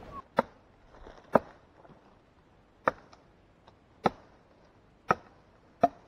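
Six sharp chopping strikes, unevenly spaced about a second apart, each with a brief ring.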